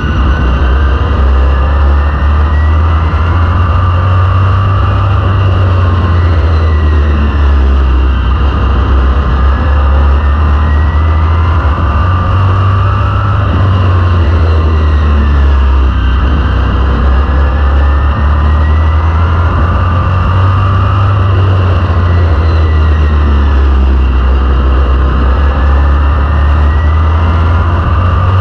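Vintage modified race car's V8 engine running hard at racing speed, heard on board, its pitch rising and falling every few seconds over a heavy low rumble.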